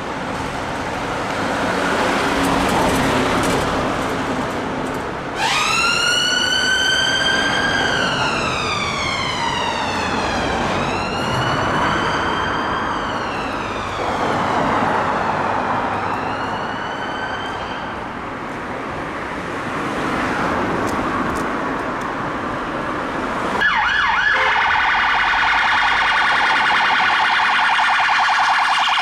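Mercedes Sprinter ambulance siren wailing over traffic noise, in long sweeps about five seconds apart, each rising quickly and falling slowly. About 24 seconds in, the sound cuts to a BMW 2 Series police car's siren in a fast warble.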